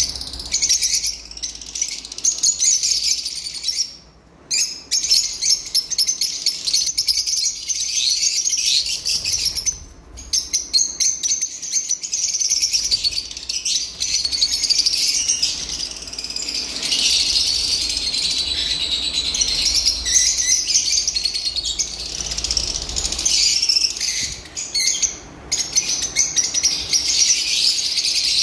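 A cageful of lovebirds chattering: a dense, continuous stream of high-pitched chirps and squeaks from many birds at once, with brief lulls about four, ten and twenty-five seconds in.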